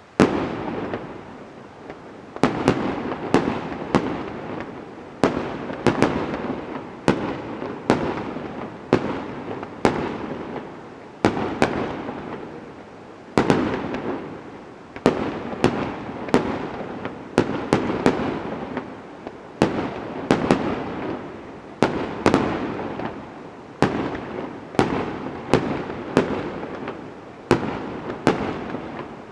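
Fireworks display: aerial shells bursting in quick succession, sharp bangs about once or twice a second with crackling and ringing tails between them.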